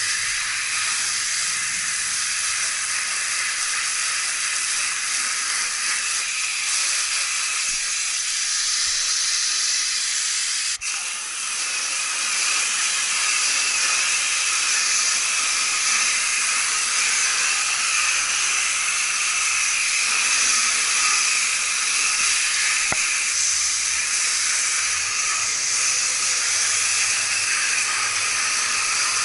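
Garden hose spraying water onto an air-conditioning coil: a steady hiss, with a brief drop about eleven seconds in.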